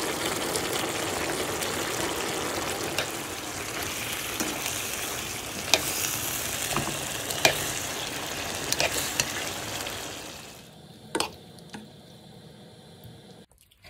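Chicken masala with vegetables sizzling in a frying pan as it is stirred, with a few sharp knocks of a utensil against the pan. The sizzle drops away about ten seconds in, leaving one more knock.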